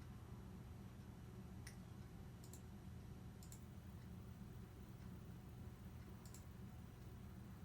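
Near silence: a steady low hum with four faint, sharp clicks spread out at intervals of roughly a second or more, the last one near the end.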